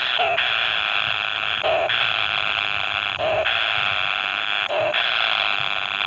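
Kingfisher nestlings giving harsh, hissing rasps, repeated about every second and a half, each broken by a short lower note. The sound is the nestlings' begging calls in the nest burrow.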